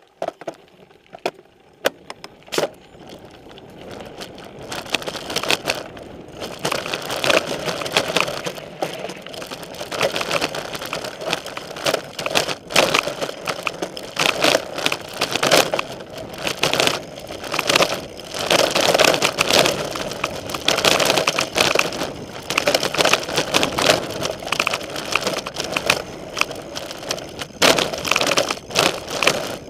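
Specialized Stumpjumper mountain bike descending a dirt trail: the knobby front tyre crunching over dirt and sticks while the bike rattles and clatters over bumps. A few sharp clicks in the first seconds, then a continuous, uneven rattling that grows louder about four seconds in.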